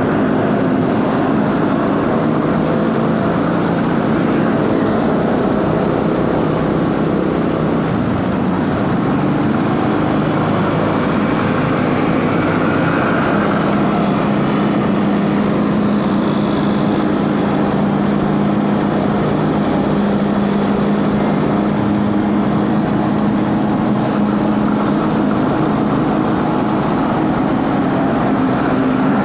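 Motorcycle engine running at a steady pace while riding, with the drive chain and intake noise mixed in; its pitch holds nearly level throughout.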